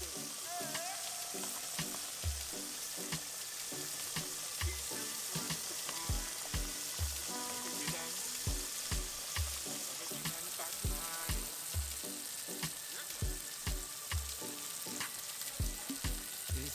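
Cubed potatoes sizzling in a pot while a wooden spoon stirs them, a steady frying hiss. Background music with a regular beat plays underneath.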